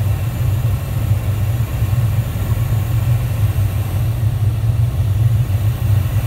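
Steady low rumble of airflow and engines heard inside a Dassault Falcon 7X business jet's cockpit on short final approach, with no change in pitch or level.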